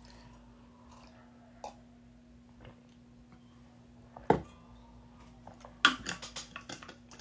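Handling noise of a drinking mug and plastic water bottle over a steady low hum: one sharp knock about four seconds in, then a quick run of small clicks and knocks near the end.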